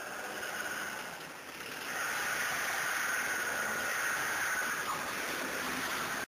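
1987 Ford Escort engine running with a steady noisy rush, getting louder about two seconds in, then cutting off abruptly.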